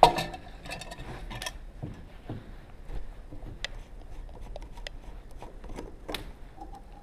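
A metal canteen cup is set down on a wooden table with a ringing clank. Small clicks and taps follow as the plastic cap of a military canteen is unscrewed, with another sharp knock about six seconds in.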